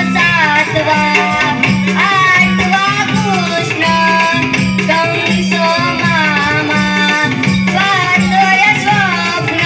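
A child's high voice singing a Krishna Leela devotional song in Konkan Naman folk style, the melody bending and ornamented, over live hand percussion keeping a steady beat.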